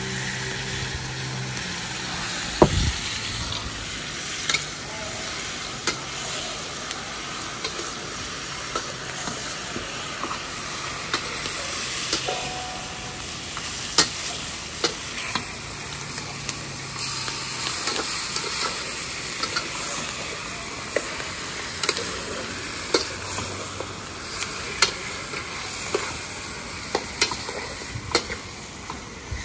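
Seasoned meat for brown stew chicken sizzling steadily in hot oil in a pot while it is stirred, with irregular clinks and scrapes of the spoon against the pot.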